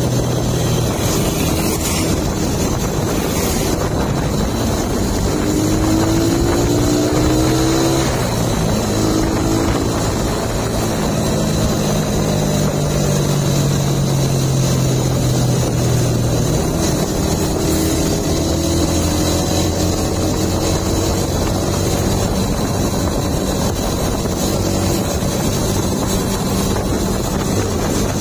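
Suzuki motorcycle engine running while riding at road speed, its pitch climbing and dropping with the throttle, over steady wind rush on the microphone.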